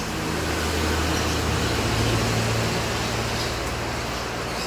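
A road vehicle's engine running as it passes, a low rumble over a noisy hiss, loudest about two seconds in and then easing off.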